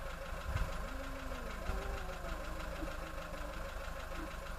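Cats yowling in a standoff: low, drawn-out wavering moans that slide up and down in pitch, over a steady background hum.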